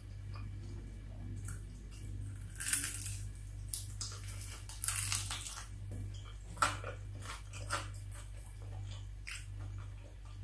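Crispy deep-fried chicken coating crunching, with two loud crackling bursts about two and a half and five seconds in, then a few shorter, lighter crunches. A steady low hum runs underneath.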